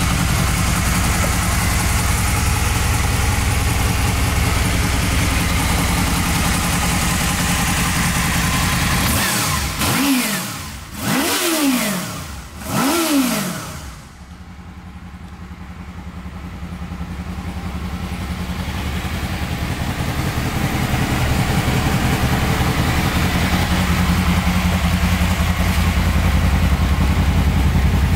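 Honda VFR800's V4 engine idling steadily, then revved three times in quick succession about ten seconds in, each rev rising and falling in pitch. It then settles back to idle, quieter at first and slowly growing louder again.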